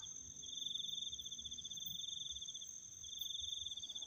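Night insects calling: a rapidly pulsed high trill in repeated phrases of about a second or more, broken by short gaps, over a second steady, higher-pitched continuous insect whine.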